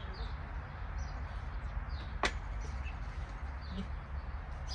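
Faint bird chirps over a steady low rumble, with one sharp click or knock a little past two seconds in.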